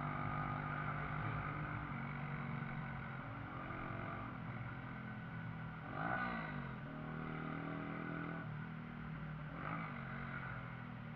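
Shineray motorcycle engine running while riding, its pitch stepping up and down with the throttle and gear changes, with a short rise in pitch and loudness about six seconds in and another near the end.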